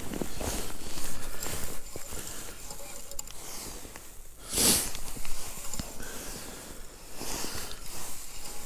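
A small spinning reel on an ice-fishing rod being cranked in uneven turns while a fish is played, the reel a little frozen from the cold, with jacket sleeves rustling against it. A louder rustling rush comes about halfway through.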